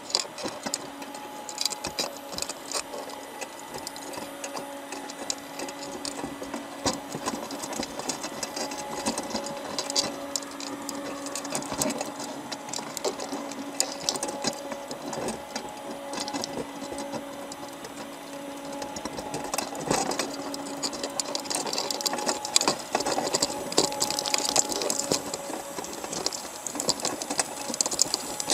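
A machine running with a steady hum under rapid, dense clicking and rattling.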